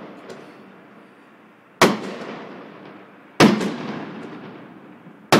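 A box of consumer fireworks bursting just outside: three loud bangs about one and a half to two seconds apart, each followed by a long echoing rumble that slowly dies away.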